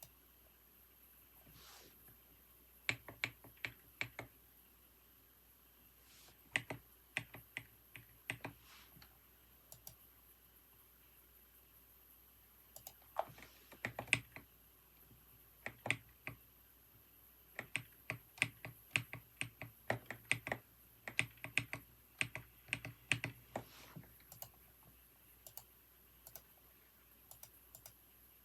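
Typing on a computer keyboard: runs of quick keystrokes broken by pauses, the busiest stretch in the middle and second half, with only a few scattered key clicks near the end.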